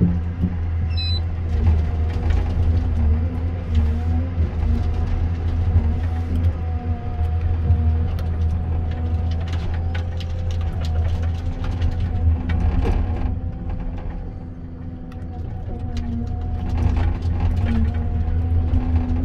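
Komatsu 931.1 harvester working: its diesel engine runs steadily with a deep rumble and a steady hum, while short knocks and cracks come from the harvester head handling a big spruce. The engine eases briefly about three-quarters through.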